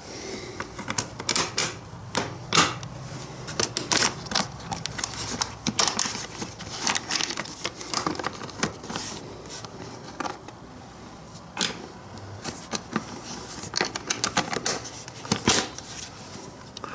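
Irregular clicks and light knocks of small motorcycle parts and hand tools being handled and fitted, some in quick clusters of taps.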